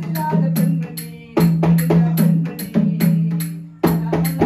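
A double-headed barrel drum (mridangam) played in a quick rhythm, its low head ringing under the strokes, with small hand cymbals clashing on the beats. The playing breaks off briefly about a second in and again near the end.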